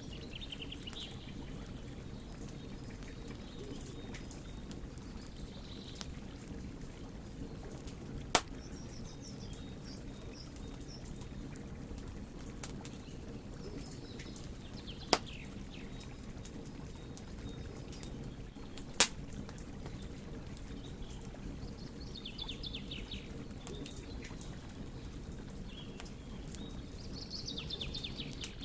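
Wood fire burning with a steady low rush and scattered small crackles, broken by three sharp, loud pops spread through.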